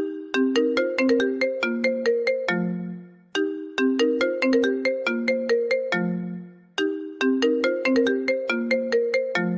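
iPhone ringtone playing: a quick melodic phrase of bright struck notes, each run ending on a lower held note that fades out, repeating about every three and a half seconds, nearly three times.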